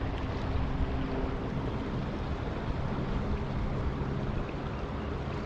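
Creek current rushing steadily, with a faint steady low hum underneath.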